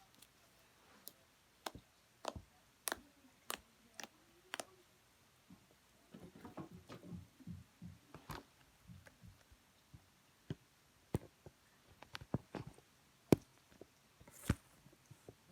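Slime being played with by hand, giving off scattered sharp clicks and pops, with a stretch of softer, denser crackling about six to nine seconds in.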